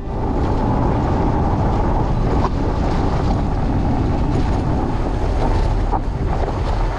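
Steady, loud rumble of a fat bike rolling fast down a dirt track, recorded on a bike-mounted camera: wind on the microphone and fat tyres on dirt, with a couple of sharp knocks from the bike over bumps, one about two and a half seconds in and one about six seconds in.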